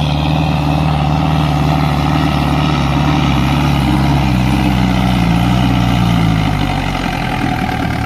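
Diesel tractor engine pulling hard up a steep slope under load, running steadily; its pitch rises about halfway through and drops back near the end.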